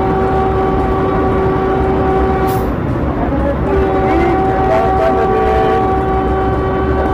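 Train horn sounding two long, steady blasts with a short gap between them, heard from inside the driver's cab over the constant rumble of the train running along the track.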